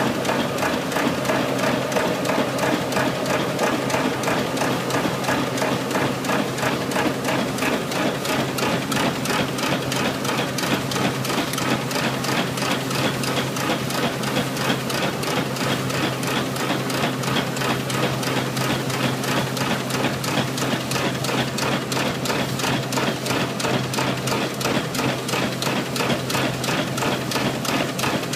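Burrell 7nhp single-crank compound steam traction engine running steadily under load, belt-driving a Marshall threshing machine: a fast, even mechanical beat over a steady hum.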